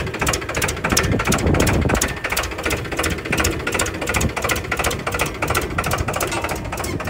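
Powertrac 439 Plus tractor's diesel engine running under load with a rapid, even clatter as it pulls a seed drill.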